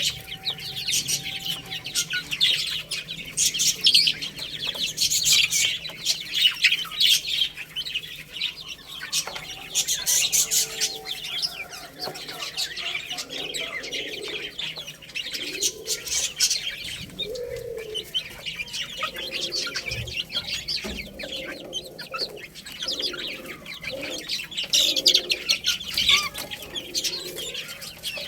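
A brood of baby chicks peeping continuously in high, short chirps. From about halfway through, lower-pitched clucking calls join in.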